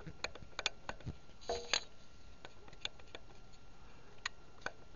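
Faint, irregular metallic clicks and taps as the bare piston of a Yamaha RD400's right cylinder is pushed and rocked in its bore with the head removed. The piston has a little play forwards and aft, the looseness suspected behind the engine's knock.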